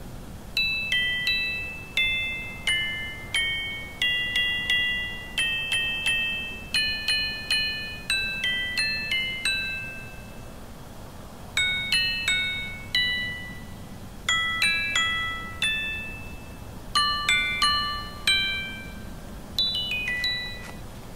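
Tuned metal chimes ringing in irregular clusters of bright, overlapping notes, each struck sharply and fading away, with short pauses between clusters.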